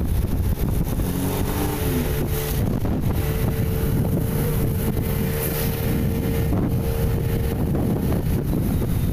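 Wind buffeting the microphone over the rumble of a vehicle driving along a road. A steady engine hum stands out from about three to eight seconds in.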